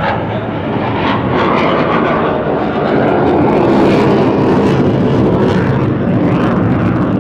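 Aircraft flying over an airfield: a loud, steady rushing engine noise with a low hum underneath, swelling a little about four seconds in, then easing.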